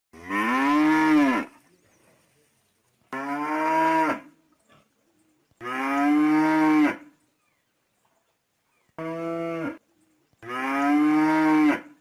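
A bull mooing five times, each moo loud and drawn out for about a second, its pitch rising and then falling away, with short pauses between calls; the fourth moo is shorter.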